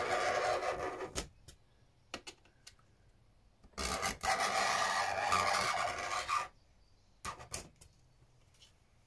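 A knife scoring a perspex sheet along a metal straightedge: two long scraping strokes, the first stopping about a second in, the second from about four seconds in to past the middle. A few sharp clicks fall between the strokes and after them, from the knife and rule being set down and repositioned.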